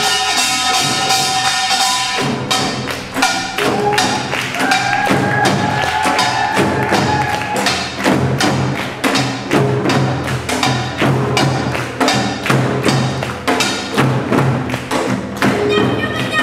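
Korean samulnori percussion: sogo hand drums struck with sticks in a fast, even rhythm, with brass kkwaenggwari gong and janggu and buk drums, over a few held melodic tones.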